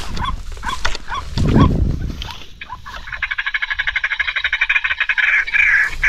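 Short rising animal calls, about two a second, over a loud rustle of footsteps in undergrowth about a second and a half in. About three seconds in, a fast shrill insect-like pulsing starts and runs on.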